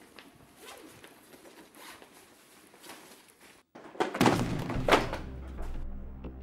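A person shoved against metal school lockers and knocked to the floor: two heavy thuds a little under a second apart, with a low music drone setting in under them. Before that, only faint hallway background noise.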